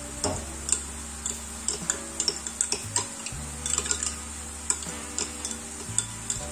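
Metal teaspoon clinking against a glass tumbler while stirring flour into water to dissolve it. Many quick, irregular clinks.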